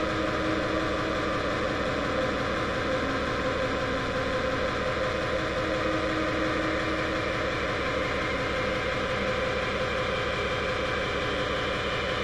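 Harsh, heavily distorted speedcore noise track: a steady wall of distortion over a rapid, even low pulse.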